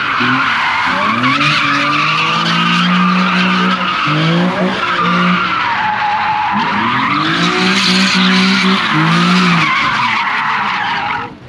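Car tyres squealing continuously as cars drift and spin donuts in tandem, over engines revving up and down repeatedly. The sound cuts off suddenly near the end.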